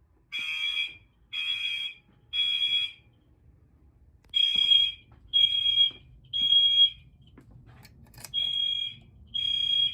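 Gentex fire alarm horns sounding in sync on the temporal code-3 evacuation pattern, three blasts in a row and then a pause, repeating, each blast a harsh steady electronic tone.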